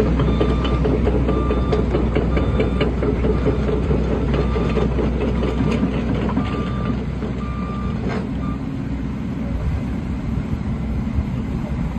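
Volvo EC210D excavator's four-cylinder Volvo D5E diesel engine running with a steady low rumble, while a warning alarm sounds short beeps at one pitch about once a second, stopping about eight and a half seconds in.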